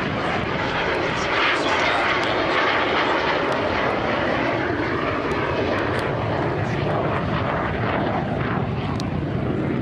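Loud, steady jet noise from a Romanian Air Force MiG-21's single turbojet engine as the fighter flies overhead.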